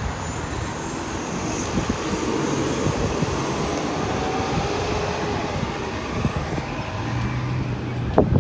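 Gusty wind on the microphone over a steady hum of road traffic, with a single knock near the end.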